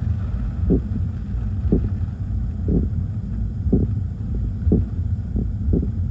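Storm wind and rain on a car, heard from inside the cabin as a steady low rumble, with a soft regular thump about once a second from the windshield wipers sweeping.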